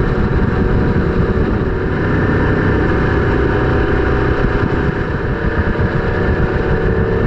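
BMW GS boxer-twin adventure motorcycle's engine running at a steady cruising speed, under heavy wind and road noise.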